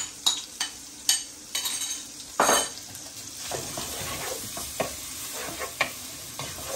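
Chopped onion going into hot oil in a steel pot: a spoon clinks against the bowl a few times, there is a short loud hiss about two and a half seconds in, then steady sizzling with a spatula scraping and stirring the frying onion.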